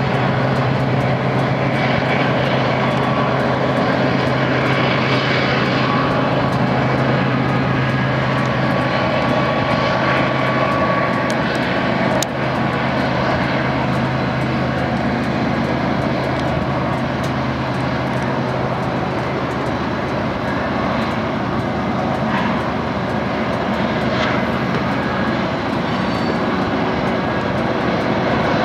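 Union Pacific freight train passing: the lead diesel-electric locomotives go by with a steady low engine drone, then the freight cars roll past. The low drone eases somewhat in the second half.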